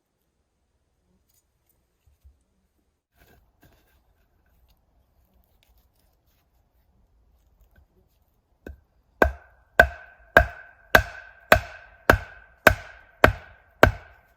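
Wood being struck hard and rhythmically: a few faint taps, then about ten evenly spaced ringing knocks, roughly two a second, starting about nine seconds in.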